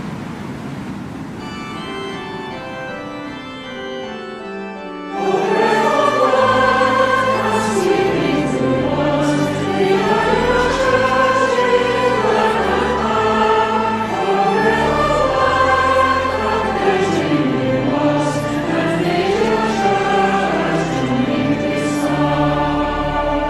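Music interlude: held organ-like keyboard chords fade in over a rushing noise. About five seconds in, the music gets louder, with a singing voice, organ and bass.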